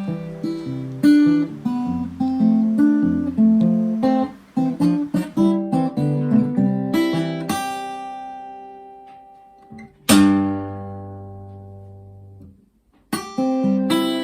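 Acoustic guitar music: picked notes and strummed chords, with one strong chord about ten seconds in left to ring out and fade before the playing starts again.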